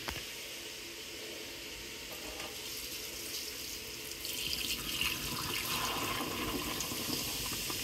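Vinegar pouring from a plastic jug into a stainless steel sink drain packed with baking soda and salt, a stream of liquid splashing into the drain. The pouring gets louder about four seconds in.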